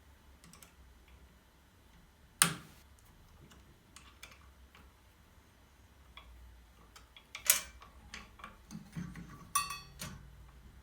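Scattered clicks and knocks of small hard objects being handled, with two sharp knocks about two and a half and seven and a half seconds in, and a short ringing tone near the end.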